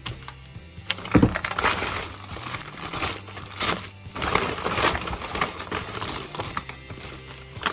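Background music with steady low notes, over irregular crinkling and rustling of food packaging being handled as meal-kit ingredients are unpacked.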